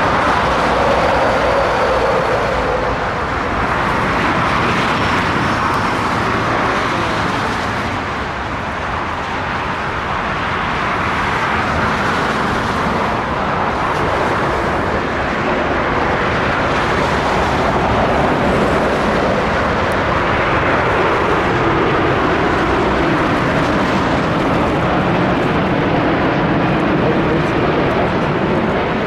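Jet engine noise of a Boeing 787-9 on landing approach with gear down: a loud, steady rush with faint tones that drift slowly up and down in pitch.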